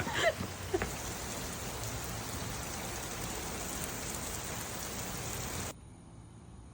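Steady hiss of water falling on surfaces, which cuts off suddenly near the end.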